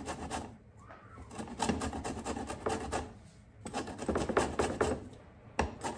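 Orange peel being grated on a flat handheld grater: runs of quick rasping strokes with brief pauses in between.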